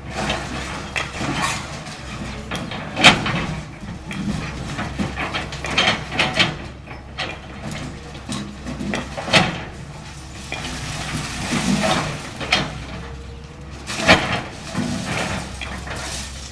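Caterpillar 325L hydraulic excavator's diesel engine running steadily while it demolishes a building, with irregular knocks, cracks and crashes of breaking masonry and falling debris, the loudest about 3, 9 and 14 seconds in.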